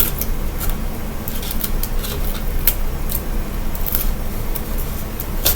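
Adhesive tape being pulled from the roll, torn and pressed along a plastic bottle, heard as irregular crackles and sharp clicks over a steady low hum.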